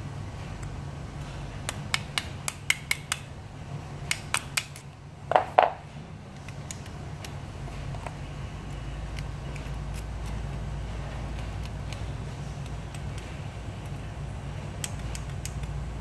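Small metal clicks and clinks from pliers and lock parts being worked as a lever lock cylinder is taken out for rekeying. There is a quick run of clicks, then a louder clink that rings briefly about five seconds in.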